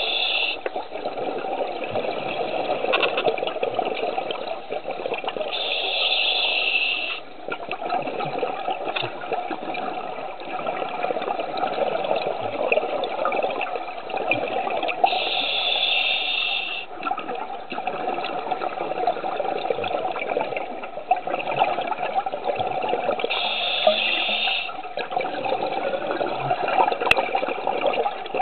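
Scuba diver breathing through a regulator underwater: a steady gurgling rush of exhaled bubbles, broken about every nine seconds by a high hiss of an inhalation lasting a second or so.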